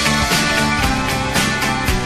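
Rock music playing, with guitar over a steady drum beat.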